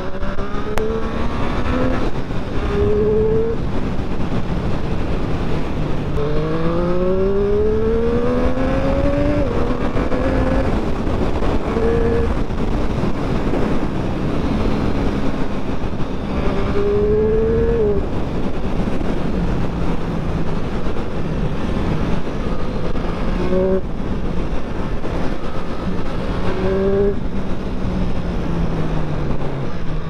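2020 Triumph Street Triple 765 RS's 765 cc three-cylinder engine and exhaust under way, its pitch climbing several times and dropping suddenly as the revs rise and fall, over a steady rush of wind noise. Near the end the engine pitch falls steadily as the bike slows.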